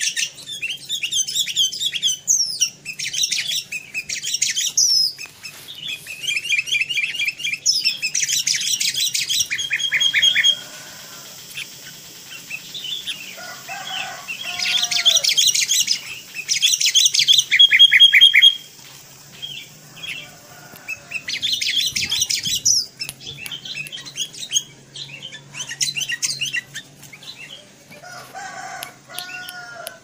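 Young sooty-headed bulbul calling in bouts of fast, high chattering notes, each bout lasting a few seconds with short pauses between.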